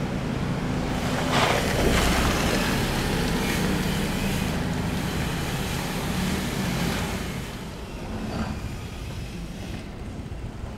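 A motor vehicle passes close by. Its engine and tyre noise swells about a second in and fades after about seven seconds, with wind on the microphone.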